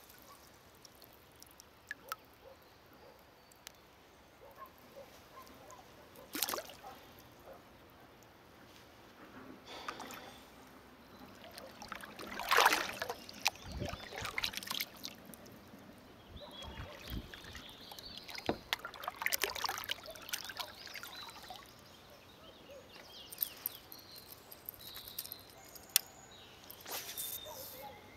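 Water sounds around a kayak: drips and small splashes from the paddle, with scattered clicks and knocks of gear against the hull. The loudest splash comes about halfway through.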